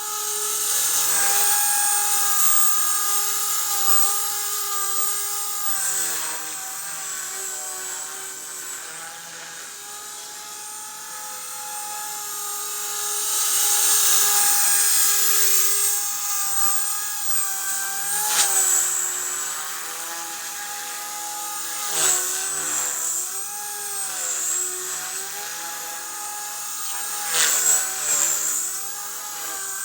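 Blade 180 CFX micro electric RC helicopter in 3D flight: a steady high whine from the motor and gears, with the rotor blades swishing. It swells loudest about halfway through, and near the end the pitch dips sharply several times as the rotor is loaded in hard manoeuvres.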